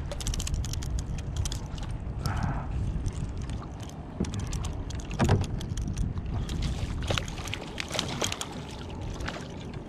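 Spinning reel being cranked as a hooked black drum is fought up to a kayak, with scattered sharp clicks of rod and reel handling over a steady low wind rumble on the microphone. The fish splashes at the surface beside the kayak near the end.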